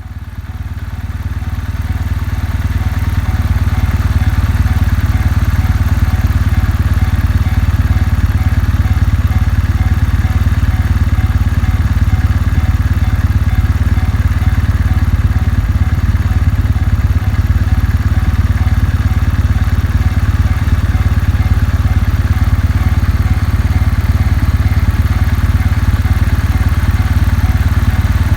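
Kawasaki W650's air-cooled parallel-twin engine idling steadily, fading in over the first few seconds. A railway crossing bell rings in a steady, even rhythm in the background.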